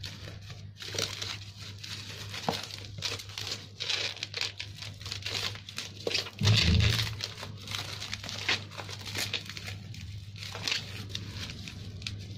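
Plastic bubble wrap crinkling and tearing as hands peel it off a cardboard box, in quick irregular crackles. A dull thump about six and a half seconds in.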